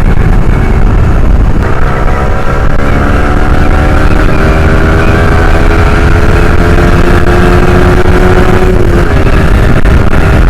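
Yamaha R15's 155 cc single-cylinder engine under way, its revs climbing steadily for several seconds and then dropping near the end, over heavy wind rumble on the microphone.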